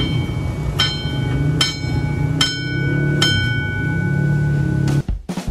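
Railway level-crossing warning bell, a dome-type alarm bell struck four times at an even pace of a little under a second, each stroke ringing on, over a low steady rumble. It sounds when a train is approaching the crossing.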